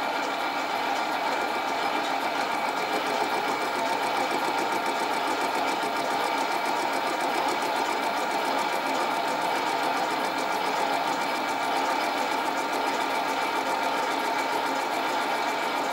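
Mini metal lathe running steadily at speed, its motor and gears whining as the four-jaw chuck spins a brass bearing being faced off.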